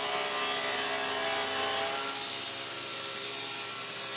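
Power saw running steadily as it cuts an oak board in two, a little louder from about halfway through.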